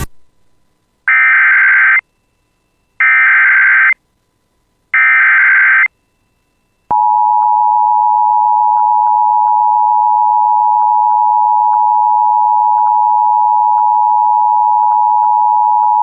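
Emergency Alert System SAME header: three bursts of digital data tones, each about a second long and a second apart, carrying the coded Severe Thunderstorm Warning. About seven seconds in, the steady alert attention tone starts and holds for about nine seconds, signalling that the spoken warning follows.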